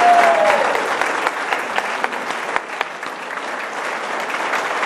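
Audience applauding, a dense patter of many hands clapping, with a short cheer right at the start.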